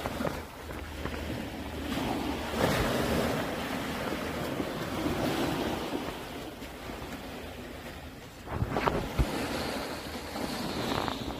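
Small waves breaking and washing up the sand, the surf swelling and easing every couple of seconds, with wind on the microphone. A couple of brief thumps about nine seconds in.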